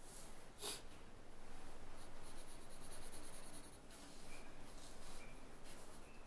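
Pencil scratching on paper in quick back-and-forth shading strokes, in a fast even run of about ten strokes a second near the middle, with looser strokes after it and a short tick about a second in.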